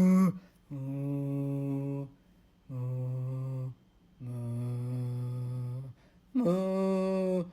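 Exaggerated snoring made as long, steady hums: three lower hums with short gaps, then a louder, higher hum near the end.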